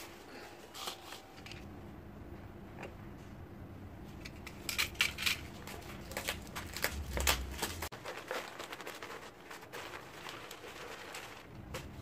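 Scissors snipping several times in quick clusters about halfway through, cutting away a plant's nursery wrapping, with small clicks and rustles of handling and a soft low thump near the loudest snips.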